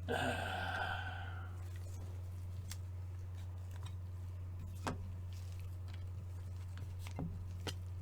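Trading cards and their packaging being handled: a short rustle at the start, then a few small clicks and taps, over a steady low electrical hum.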